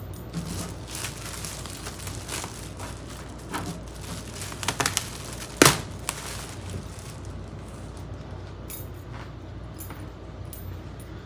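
Light handling noises: scattered clicks and rustles over a steady low hum, with a few quick clicks near the middle and one sharp knock just after.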